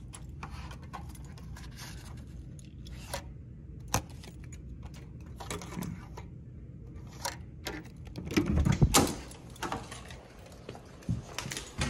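Keys jangling on a key ring and small clicks as a keycard is worked at a hotel-room electronic door lock. About nine seconds in comes a louder clatter as the lever handle is pushed and the room door opens.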